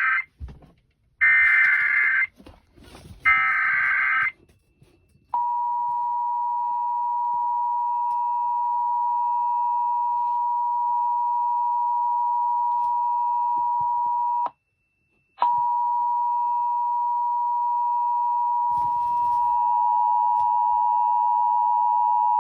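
Emergency Alert System tornado-warning signals: the tail of one burst and two more one-second bursts of the SAME header's digital data tones, then the steady two-tone attention signal (853 and 960 Hz). The attention tone drops out for about a second midway, then resumes.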